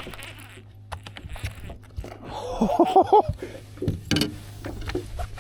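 A person's short wordless vocal exclamation, four or five quick pitched syllables, about halfway through. Under it are a steady low hum and scattered light clicks and knocks.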